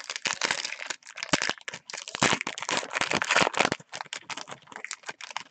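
Foil wrapper of a football trading-card pack crinkling and tearing as it is opened, a dense run of crackles that thins out near the end, along with cards being handled.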